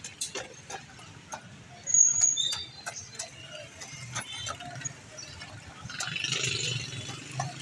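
Pointed metal ice pick repeatedly stabbing and chipping a block of ice in a steel pot of juice, giving sharp irregular clicks and cracks. A brief high squeal comes about two seconds in.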